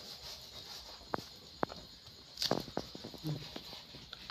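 A knife cutting through a ripe papaya and the two halves being pulled apart: a few sharp clicks and soft knocks, spaced irregularly, over a steady high hiss.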